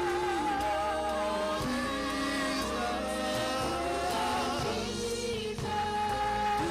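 Gospel music: sustained sung notes with vibrato over a steady held accompaniment, with no words.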